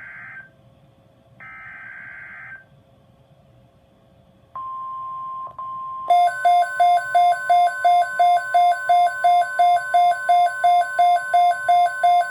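NOAA Weather Radio Emergency Alert System broadcast: two short buzzing bursts of SAME header data tones, then the steady 1050 Hz weather alert tone starts about halfway through. A loud beeping alarm of about three beeps a second joins it and keeps going over the steady tone, signalling a severe thunderstorm watch alert.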